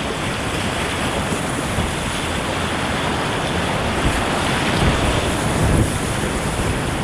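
Whitewater rapid rushing loudly and steadily around a kayak, with wind buffeting the camera microphone in low gusts.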